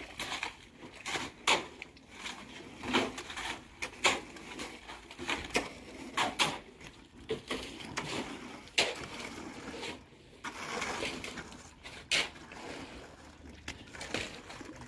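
Spade scraping and chopping through wet, hand-mixed concrete as it is spread into a strip-footing trench, in irregular strokes about once a second.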